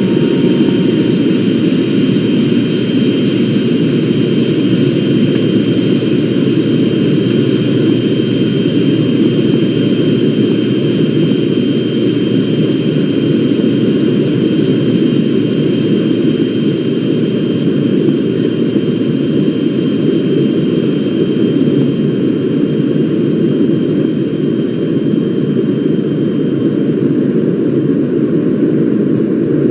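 Jet airliner engines heard inside the passenger cabin: a steady, loud rumble with a faint steady high whine over it.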